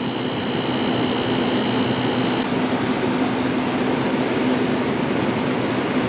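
General Electric rooftop RV air conditioner running with a steady hum and blower noise, its compressor fitted with a SoftStartRV soft starter and starting smoothly rather than banging on. The sound swells slightly over the first second or two, then holds steady.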